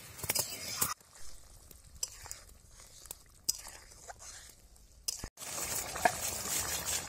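Curry gravy of onion, tomato and spices sizzling in a wide kadai while a metal ladle stirs it, with scattered clicks of the ladle on the pan. The sizzle falls away for a few seconds in the middle and comes back louder near the end.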